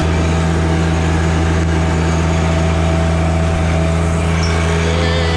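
Compact John Deere tractor's diesel engine running steadily at an even speed as the tractor drives along.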